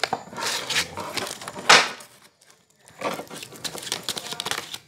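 Playing cards being handled on a wooden bench: rustling and light clicks, with one sharp slap a little under two seconds in.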